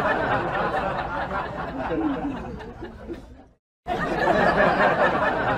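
Indistinct voices chattering and laughing, with a brief dropout to silence a little past halfway.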